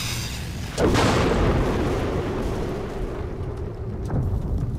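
A cartoon explosion sound effect: a sudden loud blast about a second in, then a rumbling decay that fades over the next couple of seconds.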